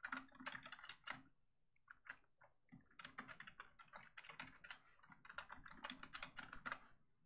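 Faint typing on a computer keyboard: quick, irregular keystrokes, with a brief lull about a second in before the typing picks up again.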